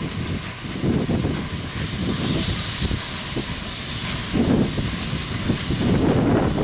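Southern Railway USA-class 0-6-0 tank engine working a train towards the listener, with a loud hiss of steam from its open cylinder drain cocks through the middle few seconds, over the low, uneven rumble and beat of the engine working.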